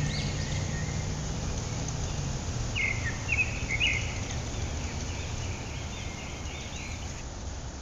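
Outdoor street ambience: a steady low hum under a few short, high bird chirps about three seconds in.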